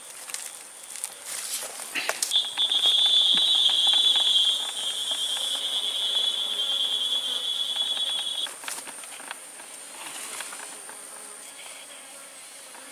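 A singing insect's high, steady buzzing call starts about two seconds in and cuts off suddenly some six seconds later, over a fainter, higher insect hum that never stops.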